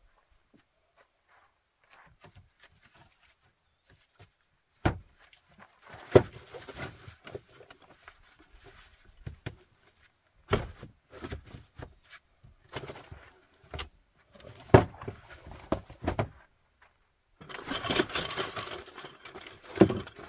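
Folding camp cot being put together: its legs knocked and clicked into place on the frame, with sharp clicks and knocks, rattling and rustling of the cot fabric. A longer stretch of rustling comes near the end.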